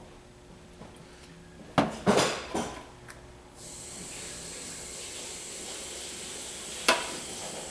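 Bottles and containers being handled on a work table: a few sharp clinks and knocks about two seconds in, then a steady hiss for about three seconds that ends with a sharp click.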